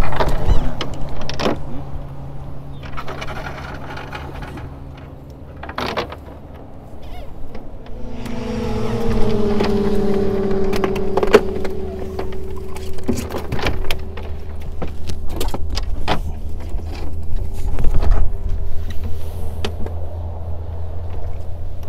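Sharp knocks and thumps as a cast net and fish are handled on a boat deck. Under them runs a steady engine hum, which gets louder about eight seconds in, drops slightly in pitch and then holds.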